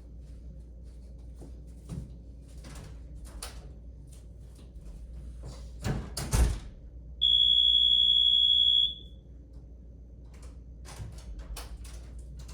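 ADA-compliant hotel-room doorbell sounding: one loud, steady, high-pitched electronic tone lasting just under two seconds, a little past halfway in. A few sharp clicks and knocks come just before it.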